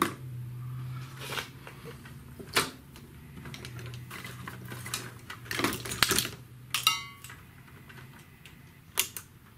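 Clicks, knocks and a metallic clink as test leads and alligator clips are handled at a bench power supply. Under them runs a steady low hum that stops about eight seconds in.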